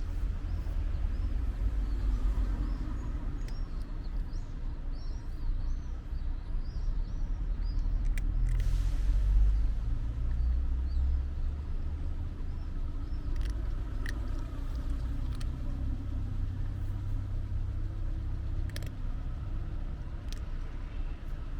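Low outdoor street rumble that swells to a peak about nine seconds in and eases off, with small birds chirping faintly in the first few seconds and a few light clicks.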